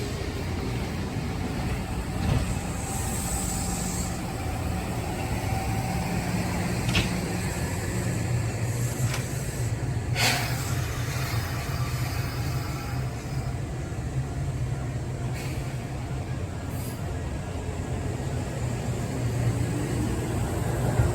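Kintetsu electric train at a station platform: a steady low hum throughout, a few clicks, and a short hiss of air about ten seconds in.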